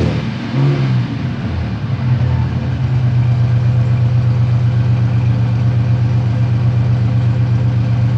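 Car engine settling from a rev and then idling steadily, the engine having leaking cylinder heads that make it cough water, as the owner describes it.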